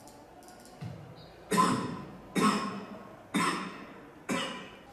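Four coughs about a second apart, each sharp at the start and then fading, with a weaker cough just before them: a recorded cough sample being played back, labelled as from a symptomatic COVID-19 patient.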